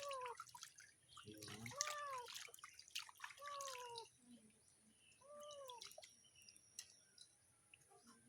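A domestic cat meowing four times while being bathed, each a short cry that rises and falls in pitch, with water dripping and small splashes between the cries.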